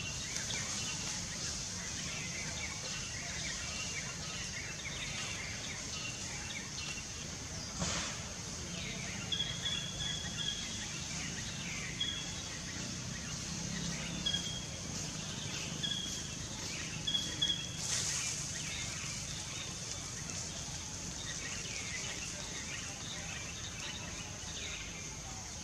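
Forest ambience: a bird's short, repeated chirps over a steady high-pitched hiss, with two brief clicks.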